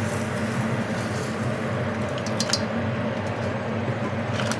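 Mussels and razor clams cooking in a pan of broth over a gas burner: a steady hiss and hum of the flame and steam, with a few quick clinks of shells against the pan a little past halfway as the pan is moved.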